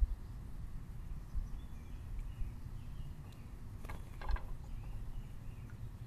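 Backyard outdoor ambience: a steady low rumble with a few faint, short, high bird chirps in the middle, and two sharp clicks about four seconds in.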